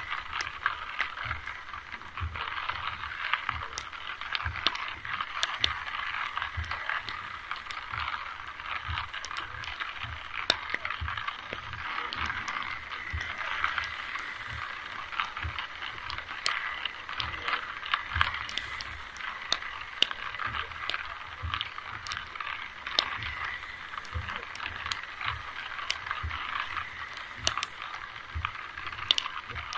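Rain pattering steadily, with many sharp drips and clicks throughout, over a run of soft low thumps about every half second.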